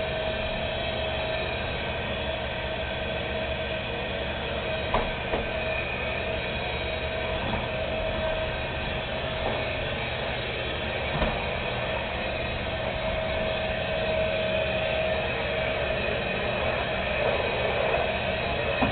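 Vacuum cleaner motor running steadily, a whine over a rushing noise, with a couple of faint knocks.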